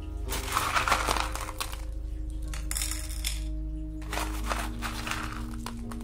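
Small stones clinking and rattling against each other and the ceramic pot as they are set in by hand, in three short spells, over background music with held notes.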